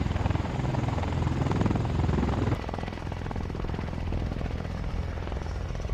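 Bell Boeing V-22 Osprey tiltrotor in helicopter mode, its proprotors beating rapidly over the turboshaft engines' noise. The sound drops somewhat about two and a half seconds in.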